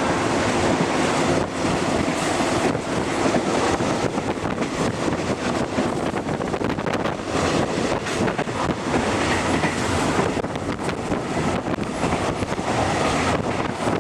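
Steady rumble and clatter of a State Railway of Thailand passenger train's wheels running on the track, heard from inside a non-air-conditioned passenger car.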